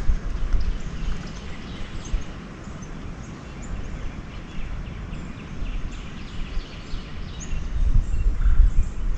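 Low wind rumble on the microphone, stronger near the end, with scattered short bird chirps.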